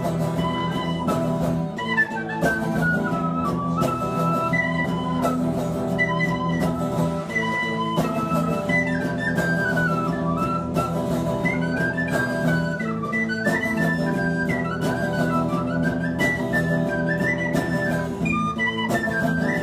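Tin whistle playing the melody of an instrumental solo, a high line that moves up and down in quick steps, over a strummed guitar accompaniment.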